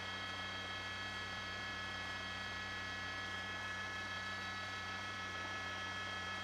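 Steady news-helicopter cabin noise heard through the onboard microphone: an even hiss and low hum with several steady high whining tones.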